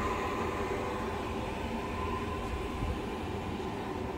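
Steady low rumble of background noise with a faint constant hum; no single event stands out.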